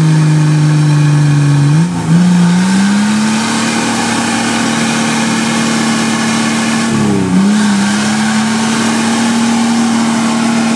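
Off-road 4x4 engine working hard under load while climbing through deep mud. It holds high, steady revs, with two brief drops and recoveries, about two seconds in and again about seven seconds in.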